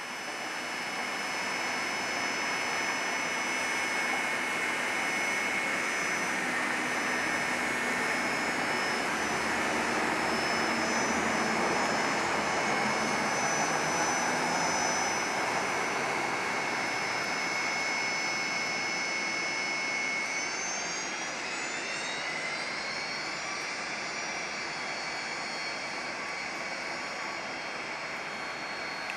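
Airbus A319 twin-jet airliner on landing approach: steady jet-engine noise with a high whine, loudest about halfway through. About twenty seconds in, several whining tones glide upward.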